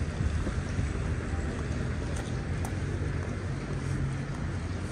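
Busy city street ambience on wet roads: a steady low rumble of traffic and tyres hissing on the wet tarmac, with a few faint ticks.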